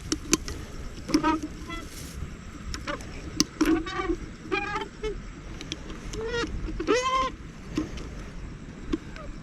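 Several short honking calls, each with a clear pitch, the longest and loudest rising and falling about seven seconds in, with a few sharp clicks in between.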